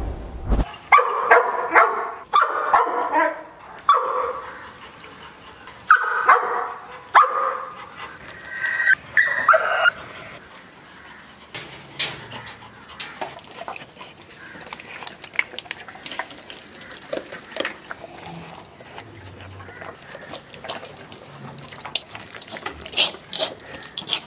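A dog barking and whining in a run of short, high-pitched yelps through the first half, then falling quiet, leaving faint scattered clicks and knocks.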